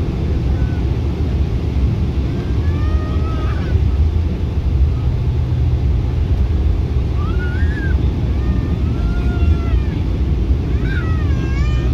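Steady low rumble inside the cabin of a Boeing 777-300 as it taxis, with faint passenger voices now and then.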